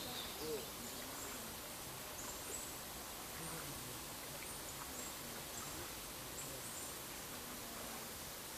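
Faint outdoor ambience: a steady hiss with scattered faint high chirps.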